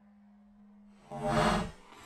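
A loud, ringing report about a second in that dies away within about half a second: a .38 Special +P round fired from a Taurus 605 snub-nose revolver at steel plate targets, the shot and the plate's metallic ring run together.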